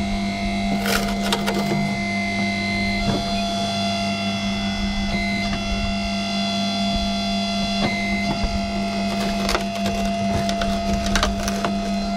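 Electric-driven hydraulic system of a 220 V mains-powered excavator running with a steady hum, with scattered clicks and knocks on top.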